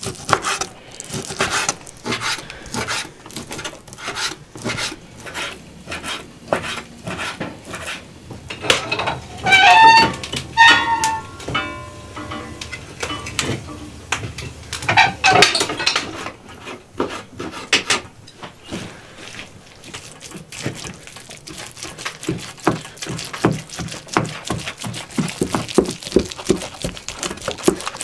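Kitchen knife chopping raw beef on a wooden cutting board: a fast run of repeated knocks on the wood, quickening near the end. About a third of the way in it gives way for several seconds to ringing metal clatter of pots and stove parts.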